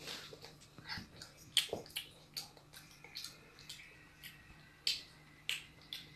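A child chewing and gnawing a piece of chicken curry held in his fingers: a string of irregular wet mouth smacks and clicks, several a second, the loudest about a second and a half in.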